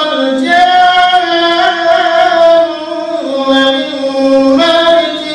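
Male imam's melodic Qur'an recitation (tilawah) during congregational prayer, sung into a microphone. It has long held notes that step down in pitch and rise again near the end.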